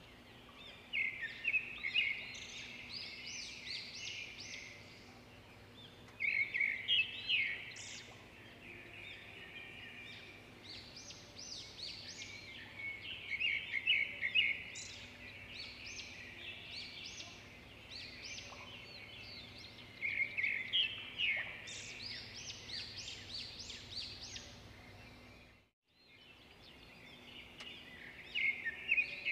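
A songbird singing short phrases of quick, high chirping notes, five phrases a few seconds apart, over a faint steady low hum. The sound drops out for a moment about 26 seconds in.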